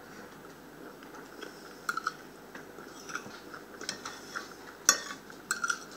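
A person chewing a mouthful of food close to the microphone, with scattered short sharp clicks and smacks, the strongest about five seconds in.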